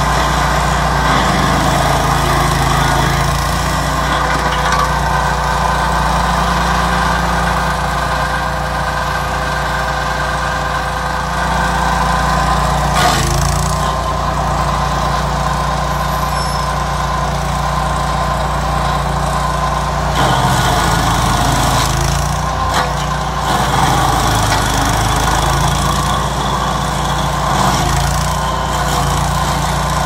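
Vermeer stump grinder's gasoline engine running steadily under load while its cutter wheel grinds into a tree stump, with a sharp knock about halfway through and the engine note wavering for a few seconds after that.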